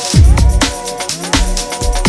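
Electronic background music with a fast drum-and-bass beat: deep bass hits that drop in pitch, quick hi-hat strikes and held synth chords.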